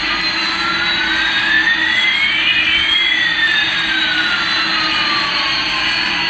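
Jet engine sound effect, as from a toy airliner: a steady whooshing hiss with one whistling tone rising and another falling, the two crossing about halfway through.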